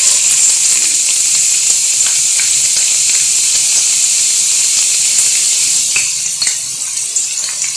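Sliced red onions sizzling in hot oil in a frying pan, just dropped in: a steady hiss with a few faint pops that eases a little near the end.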